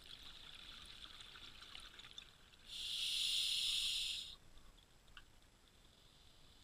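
Scuba diver breathing through a regulator underwater: a steady hiss that starts and stops sharply, lasting about a second and a half midway, with faint crackling before it.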